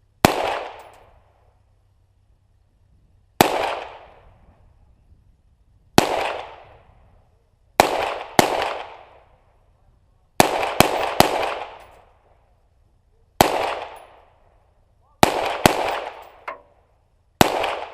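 A firearm fired about a dozen times at an irregular pace, mostly single shots a few seconds apart with some quick pairs and a run of three, each shot echoing away over about a second.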